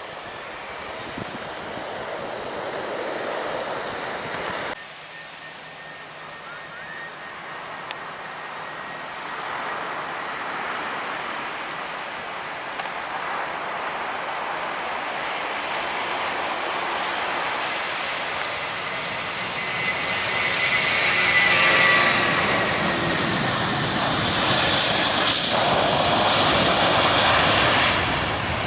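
Aircraft engines growing steadily louder as a plane comes close, building to a loud rush with a high whine over the last several seconds. The sound breaks off abruptly about five seconds in before the build begins.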